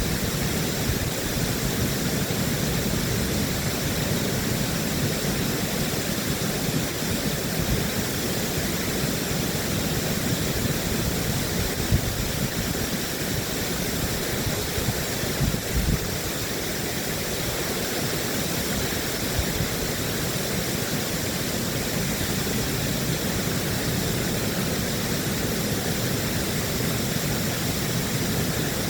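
Water rushing through a dam: a steady, unbroken noise, with faint steady tones running through it higher up.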